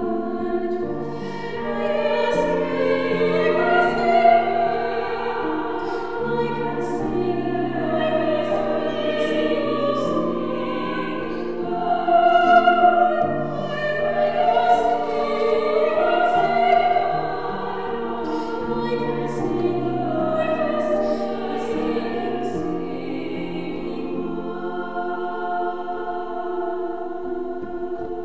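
A church anthem sung by two singers in harmony, continuous and steady in level.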